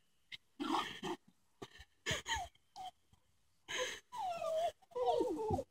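Dog whining and yipping in short calls, several of them sliding down in pitch, coming thicker in the last couple of seconds.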